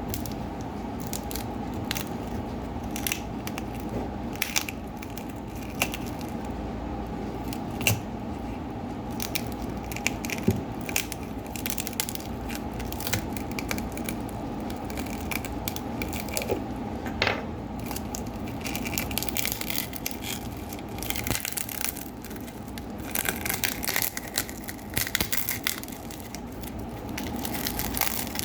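Smartphone parts being handled and pulled apart by hand: irregular crackling, crinkling and small clicks, busier in the last third, over a steady low hum.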